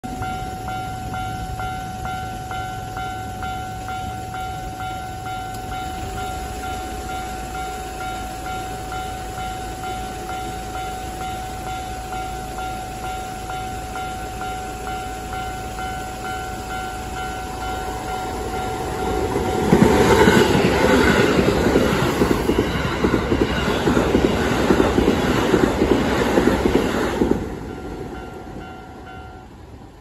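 A Japanese level-crossing alarm rings steadily. About twenty seconds in, a Keikyu 1500-series electric train passes through the crossing at speed, and its wheels clatter over the rail joints for about seven seconds. After the train has gone the level drops, and the alarm stops near the end.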